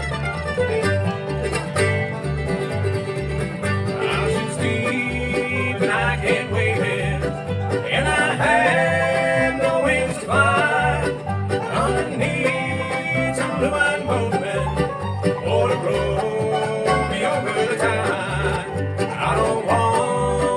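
Bluegrass band playing live: banjo, guitar and mandolin over a plucked upright bass keeping a steady beat.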